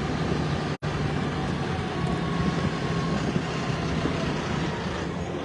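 Motor vehicle engine running steadily, a low even hum with road noise, with a brief dropout a little under a second in.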